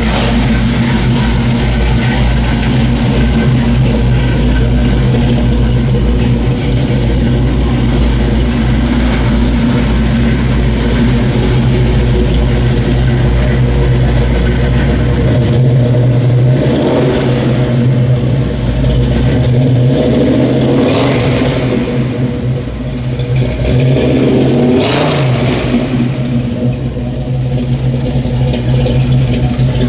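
Small-block 350 ZZ4 V8 running through headers and a dual exhaust, idling steadily, then blipped three times in the second half, about four seconds apart.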